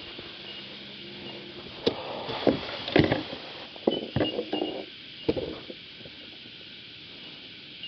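Series of sharp knocks and clinks of hard gear handled on a kayak, bunched from about two seconds in to just after five seconds.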